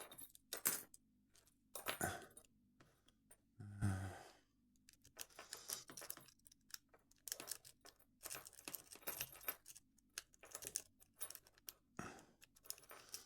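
Metal rake pick and tension wrench working in a Master Lock padlock: irregular small scraping clicks and ticks as the pins are raked, with light metallic rattles of the lock and tools. A short, louder rustle comes about four seconds in.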